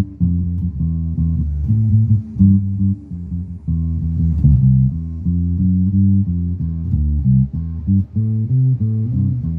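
Electric bass (a Schecter Diamond Series Scorpion) played through a Peavey 400 series bass amp set to parallel, with the signal feeding both the normal and harmonics channels: a riff of short, quickly changing low plucked notes.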